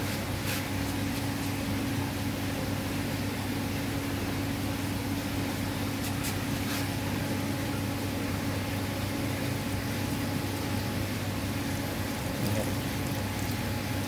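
Steady low machine hum of running equipment, with faint water trickling as a mesh net of fish drains, and a few light clicks.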